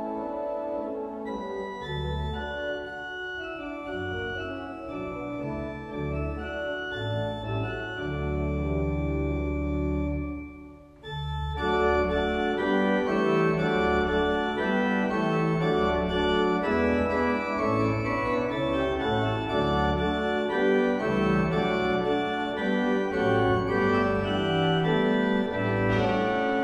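Organ music: sustained chords over low bass notes, with a short break about eleven seconds in, after which the playing is fuller and louder.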